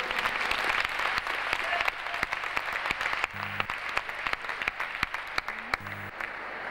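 Audience applauding, dense clapping that gradually thins out and dies down towards the end.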